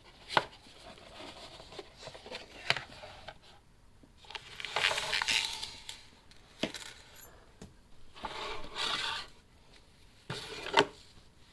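Light metallic clinks and rattling from a metal whistle and its fine chain being handled, with a few sharp clicks and longer stretches of rustling, including a cloth pouch being handled near the end.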